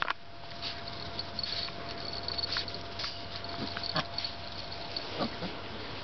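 A litter of young puppies making small high squeaks and whines, with louder short cries about four seconds in and again just after five seconds.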